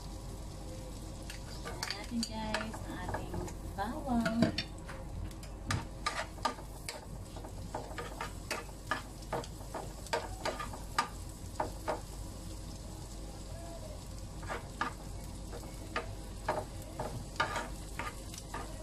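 Chopped garlic sizzling in hot oil in a nonstick frying pan, stirred with a wooden spatula that taps and scrapes against the pan at irregular intervals.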